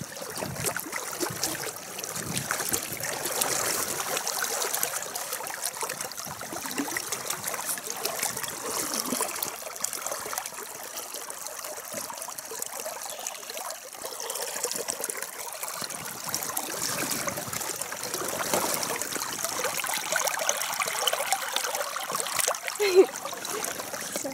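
Shallow, fast-flowing river trickling and babbling in a steady stream of fine splashes, with one brief sharp knock near the end.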